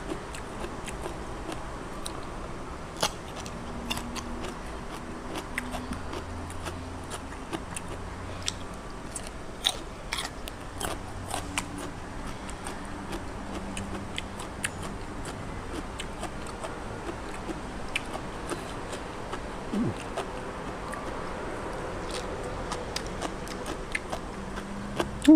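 Close-up chewing and wet mouth clicks and smacks of a person eating, with scattered sharp clicks over a steady hiss.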